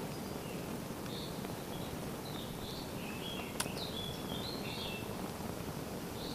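Wind buffeting the microphone, with birds chirping now and then in short high calls, and a single sharp click about three and a half seconds in.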